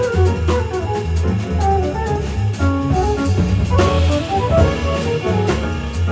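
Live jazz quartet playing: electric guitar soloing in quick single-note lines over bass, drum kit and piano, with cymbals keeping time.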